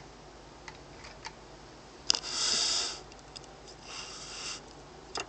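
Handling noise from a handheld camera: a few light clicks and two short hissy rubbing rushes, the louder one about two seconds in and a fainter one about four seconds in.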